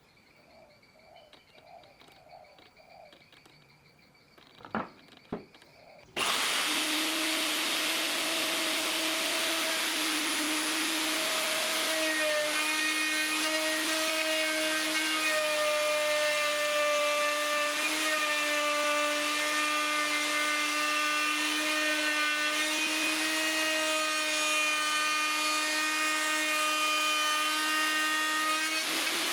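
Electric power tool cutting or sanding wood: two sharp clicks, then about six seconds in the motor starts abruptly and runs at a steady pitch with a constant hum, without slowing.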